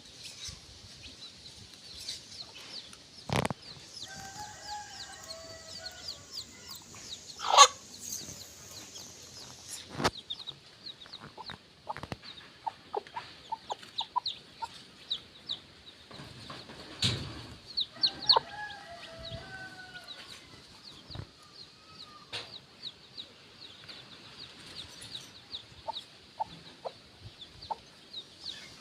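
Baby chicks peeping constantly in quick high chirps while the mother hen clucks softly to them as they forage. A few sharp knocks cut through, the loudest about seven or eight seconds in.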